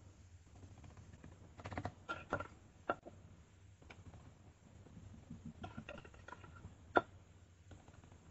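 Metal spoon tapping and scraping against small fluted aluminium tart moulds as thick orange custard is spooned into them: a few scattered light clinks, a cluster about two seconds in and the sharpest one about seven seconds in, over a faint low hum.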